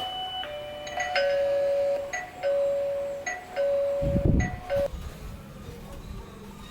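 Electronic doorbell chime playing a repeating bell-like melody after the doorbell button is pressed. The melody stops short about five seconds in, just after a low thump.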